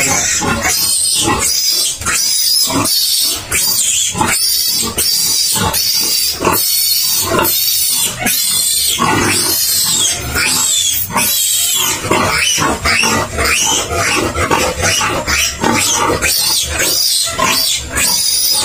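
Three-day-old piglet squealing, loud high-pitched screams one after another, in distress while it is held down and its tail is docked and sprayed.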